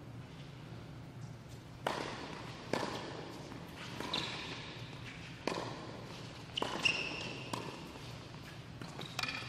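Tennis balls being struck by rackets and bouncing on a hard indoor court during a doubles rally: about eight sharp pops, starting about two seconds in and coming roughly once a second, each echoing in the large hall.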